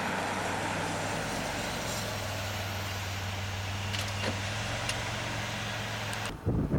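A vehicle running steadily with a low, even hum. It cuts off abruptly near the end, replaced by wind buffeting the microphone.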